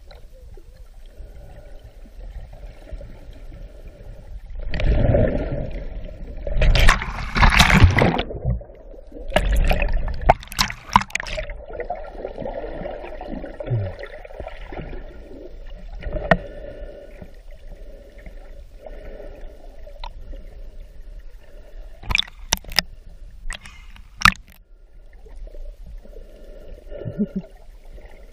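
Water heard through a submerged camera: muffled gurgling and bubbling, with several loud rushing bursts in the first half and a few sharp clicks later on.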